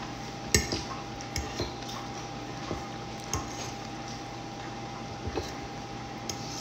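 Metal fork clinking and scraping against a ceramic plate while scooping food, several short knocks with the loudest about half a second in, over a faint steady hum.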